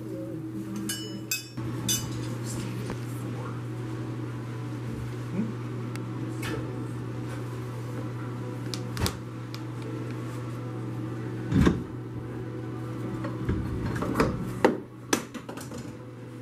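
Scattered metal clinks and knocks of wrenches and steam piping as an insulated pipe section is unbolted at its flange and lifted down, the loudest knock about two-thirds of the way through and a quick run of them near the end. A steady low hum lies under it all.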